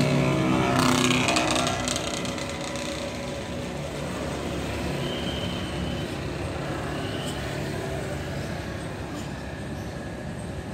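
A motor vehicle passing close by in the first two seconds, a steady engine note with some clatter, fading into a steady hum of traffic.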